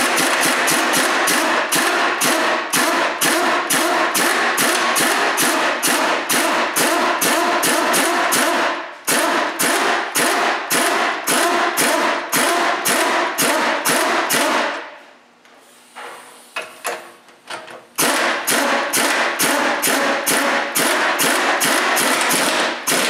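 Pneumatic impact wrench (air gun) hammering a new self-locking nut down onto the top of a strut shaft, in three long runs with a brief break about nine seconds in and a longer pause around fifteen to eighteen seconds in.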